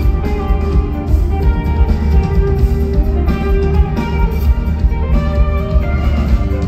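Live rock band playing an instrumental passage, guitar to the fore over a heavy, steady bass.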